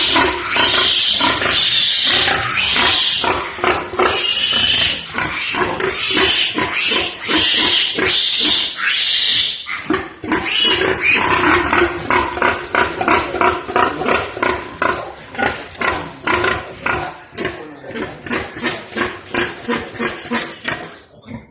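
Pigs squealing loudly and shrilly for about ten seconds. Then a quick, steady run of short grunts, about three a second, that grows fainter toward the end.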